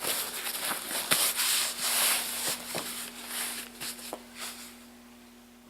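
Nylon container fabric rubbing and rustling, with light scrapes and clicks, as a BASE rig's tuck flap is worked into the pocket on the top flap. The handling noise tapers off near the end.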